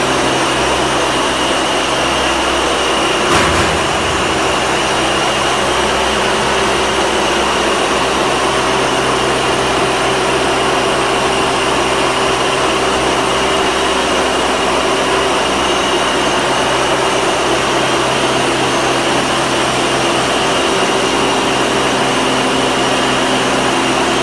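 Robotic casting grinding and cutting cell running: a loud, steady machine drone with a few constant tones, and one brief knock about three and a half seconds in.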